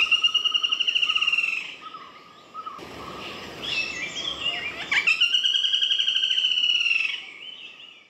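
Black-rumped flameback woodpecker calling twice, each call a fast trill of sharp repeated notes lasting one to two seconds, the second starting about five seconds in. Softer chirps of other birds come in between.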